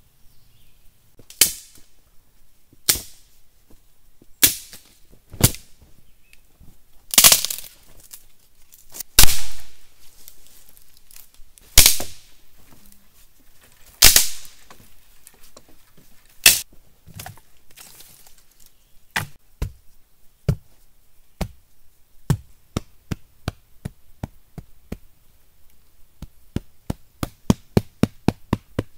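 A long wooden branch being swung and struck against wood: about nine loud, sharp wooden cracks a couple of seconds apart. Then a run of lighter knocks that quickens to about three or four a second near the end.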